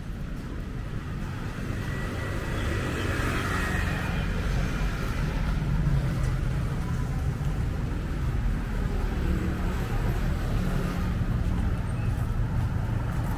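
Road traffic: a steady rumble of vehicle engines and tyre noise, growing louder over the first few seconds.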